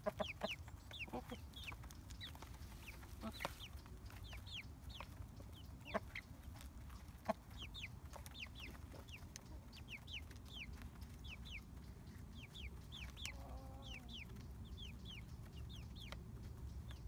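Chickens feeding: young Bielefelder chickens peeping over and over in short, high, falling chirps, with a single lower cluck about two thirds of the way through. A few sharp taps, beaks striking the feed dish, stand out in the first half.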